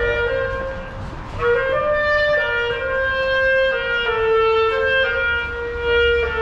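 A clarinet played live by a busker in a tiled pedestrian underpass: a slow melody of held notes that steps between pitches, with a short break about a second in.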